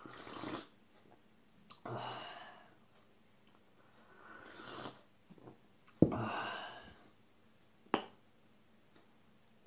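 Noisy sips of tea from a ceramic mug with breathy exhalations between them, four in all. A sharp knock about six seconds in, then a single fork clink on a plate about eight seconds in.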